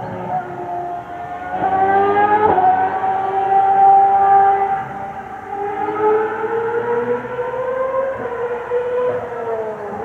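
High-revving racing car engines heard at a distance, several engine notes overlapping. One climbs in pitch and drops sharply at a gear change about two and a half seconds in; the notes then hold, rise slowly and fall away near the end.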